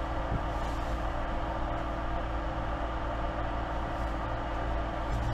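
Steady low machine hum with a constant drone and no distinct events.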